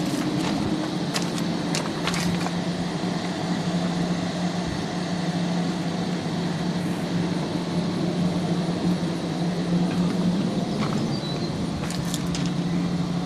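Caterpillar diesel engine of a tub grinder running steadily, with a few light clicks about two seconds in and again near the end.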